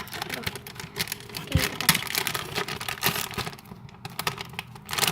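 Plastic packaging crinkling and crackling irregularly as it is handled and opened by hand.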